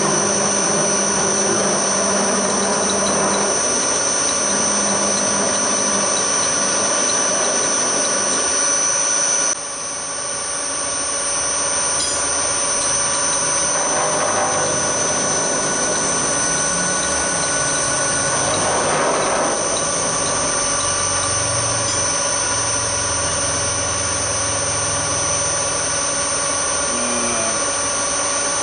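Hafco HM 54GV milling machine running, its spindle drive giving a steady high-pitched whine, while an end mill cuts an aluminium bracket as the table is fed by hand. The level drops suddenly for a moment about ten seconds in.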